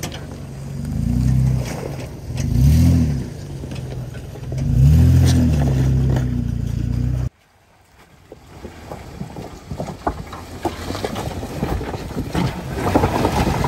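Jeep Wrangler engine revving in about four bursts, its pitch rising and falling each time, as the driver gives it gas to climb over rocks. It cuts off suddenly about seven seconds in, and after that a lower-running engine under the crackle and crunch of tyres grinding over rock, getting louder near the end.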